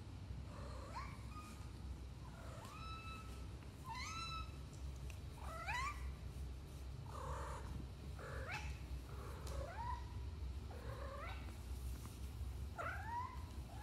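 Domestic cat meowing over and over, about ten short calls that each rise in pitch, roughly one a second. These are the calls a cat makes on bringing its owner a toy as a 'gift'.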